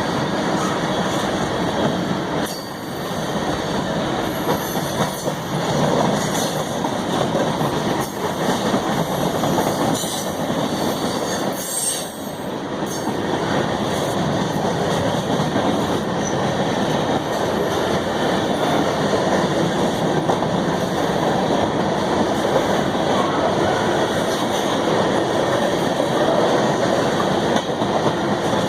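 A train rolling steadily past at track side, its cars' wheels clattering over the rails, with a few sharp clanks in the first half.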